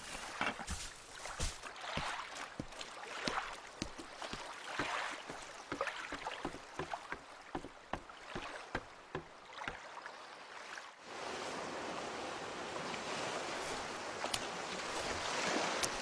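Animated-film sound effects: a run of short knocks and clunks mixed with small splashes and sloshes of water, giving way about eleven seconds in to a steady wash of sea water.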